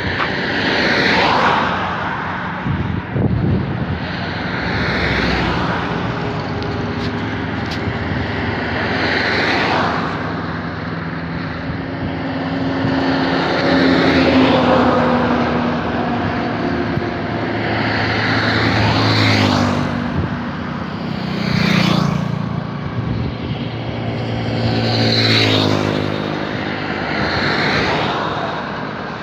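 Cars, motorbikes and scooters passing by one after another, about seven in all. Each one swells up and then fades, and its engine note drops in pitch as it goes past.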